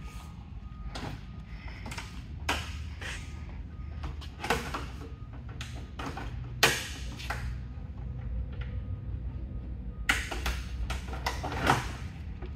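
Hands rummaging through loose gear in a plastic crate on the truck's rack: irregular clatters, knocks and scrapes, the sharpest a few seconds apart, over a low steady hum.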